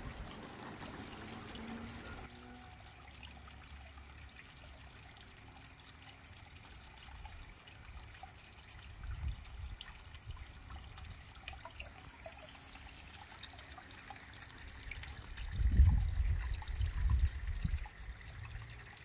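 Water trickling steadily, as from a garden pond's water feature. Low rumbling thumps come through about nine seconds in and, loudest, from about sixteen to eighteen seconds in.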